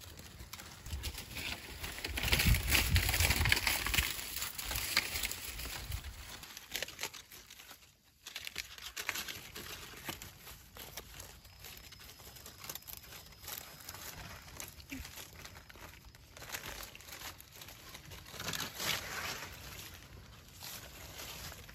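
Dry banana leaves crackling and rustling as a baby monkey clambers and tugs among them. A louder stretch with a low rumble comes about two to six seconds in.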